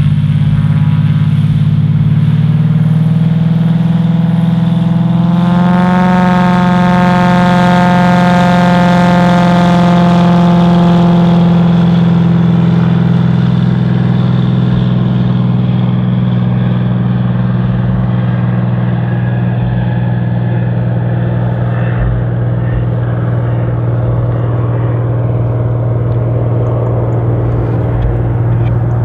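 Cessna P210R Pressurized Centurion II's turbocharged six-cylinder Continental TSIO-520 piston engine and propeller at takeoff power. The engine note rises in pitch a few seconds in as power comes up, holds steady through the takeoff roll, then drops slightly and turns duller as the aircraft lifts off and climbs away.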